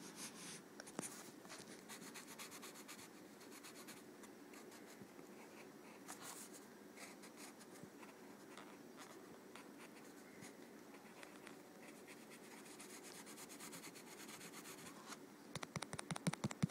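Faint scratching of a drawing tool across paper in light shading strokes, speeding up into a quick run of louder back-and-forth strokes near the end.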